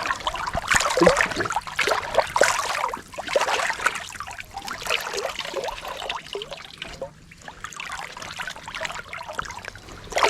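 River water splashing and sloshing in irregular surges, about one a second, as legs wade through the shallow current.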